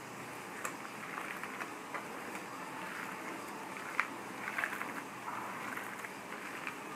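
Faint squishing and rustling of a bare hand kneading a mashed potato mixture on a porcelain plate, with a few soft clicks, the clearest about four seconds in.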